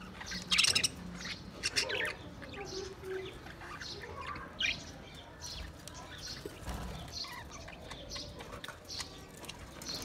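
A flock of budgerigars chirping and chattering, many short calls overlapping; the loudest burst comes in the first two seconds.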